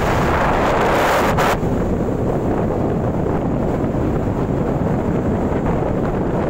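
Wind buffeting the microphone on a moving motorcycle, a steady low rumble. A louder rush while passing close beside a truck cuts off suddenly about a second and a half in.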